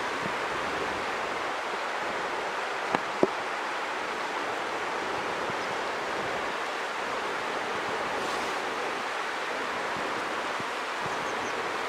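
Steady rushing of a river flowing over rocky shallows. Two brief knocks come close together about three seconds in.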